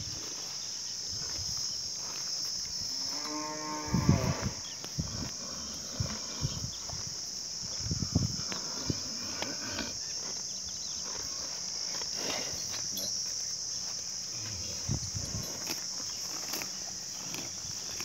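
A cross-bred Sahiwal bull lowing: one moo of about a second and a half, a few seconds in, falling slightly in pitch.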